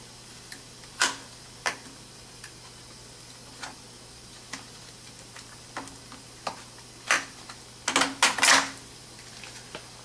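Sharp clicks and knocks of hand tools and metal parts being handled at irregular times, with a quick cluster of rattling clicks near the end, over a faint steady low hum.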